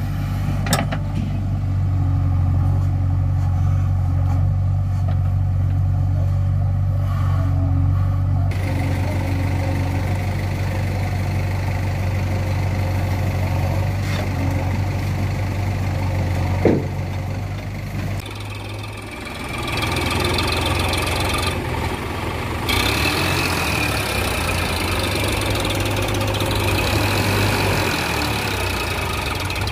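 Diesel engines of a JCB 3DX backhoe loader and a Sonalika DI 60 tractor running steadily, with one sharp knock partway through.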